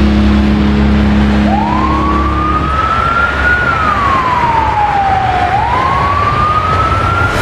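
A wailing siren over a loud, even vehicle rush. Its pitch climbs from about a second and a half in, falls slowly, then climbs again near the end. A steady low hum underneath stops a few seconds in.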